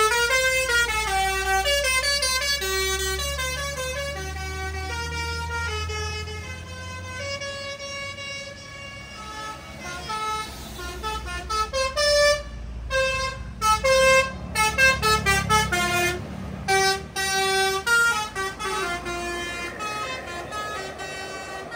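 Tour buses' 'telolet' musical air horns playing a quick tune of stepping notes as the buses pull away, over the low rumble of their engines. The tune fades over the first several seconds, then comes back as short clipped notes in quick bursts in the second half.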